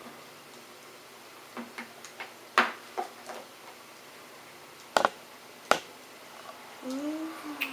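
A handful of sharp, irregular clicks and knocks of small hard objects in a quiet room, the loudest about two and a half seconds in and twice more around five seconds in.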